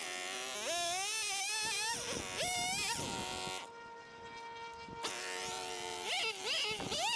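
Gas two-stroke chainsaw revving up and down as it cuts into small trees and brush, its pitch climbing and falling every second or so, with a steadier, lower note held for about a second near the middle.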